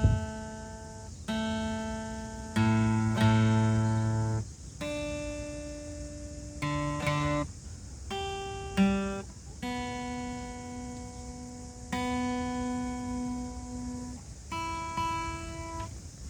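Guitar playing a slow instrumental intro of held chords, a new chord every one to two seconds.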